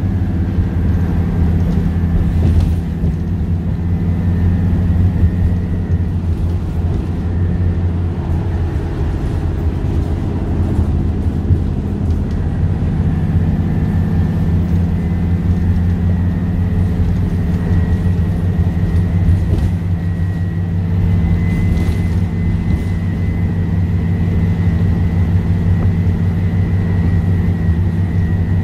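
Dennis Trident II bus with a Cummins ISC diesel engine and ZF Ecomat 5HP500 automatic gearbox under way, heard from inside the passenger saloon: a steady engine drone with a thin gearbox whine over it that slowly climbs in pitch. The engine note changes about twelve seconds in.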